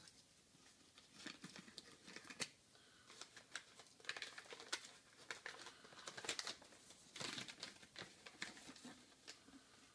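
Newspaper packing being unwrapped and crumpled by hand. Irregular crinkling and rustling comes in quick bursts from about a second in until near the end.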